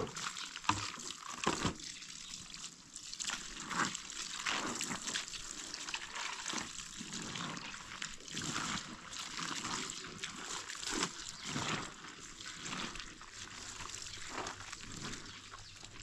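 Water running from a garden hose into a plastic basin and splashing on concrete as cloth is washed by hand in it, with irregular splashes and sloshing. Right at the start, a basin of soapy water is tipped out onto the ground.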